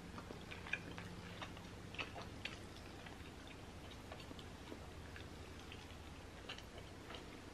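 Faint mouth sounds of eating chewy tteokbokki rice cakes: soft, scattered wet clicks and smacks of chewing, a few sharper ones standing out.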